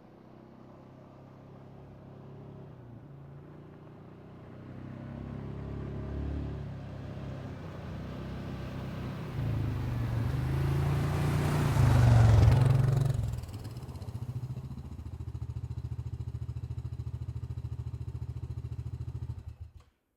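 Four-stroke utility ATV engine growing louder as it comes closer, peaking about twelve seconds in, then settling to a steady, evenly pulsing idle until the sound cuts off abruptly near the end.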